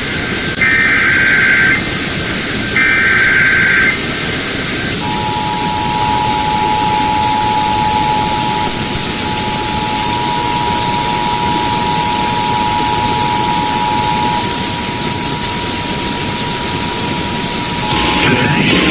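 Emergency Alert System alert over radio static: the last two screeching data bursts of the SAME header, then, about a second later, the steady two-tone attention signal sounding for about thirteen seconds.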